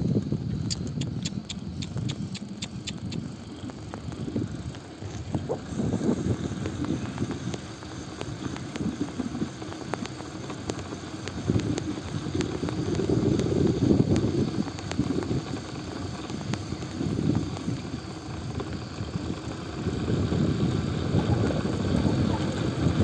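Wind rumbling on the microphone of a moving bicycle, swelling and fading in gusts, with a quick run of light ticks in the first three seconds.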